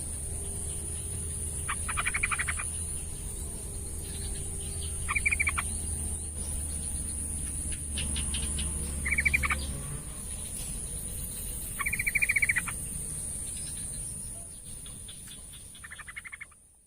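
Yellow-vented bulbul (trucukan) calling: five short bursts of rapid chattering notes, a few seconds apart, over a steady high-pitched hiss. The sound fades out near the end.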